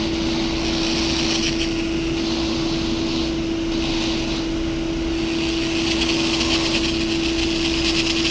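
Power drill boring a hole through the steel of a car's gear-shifter assembly, the bit cutting in several spells over a steady hum.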